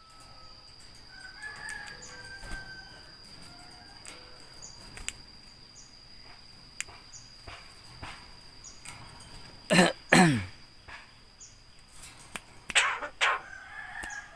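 Loud harsh bird calls: two short squawks falling steeply in pitch about ten seconds in, and another burst of calls near thirteen seconds, over a steady faint high tone.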